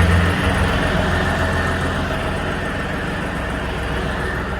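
Diesel tractor engine running steadily close by, with a deep, even hum; it comes in abruptly and eases slightly over the first second.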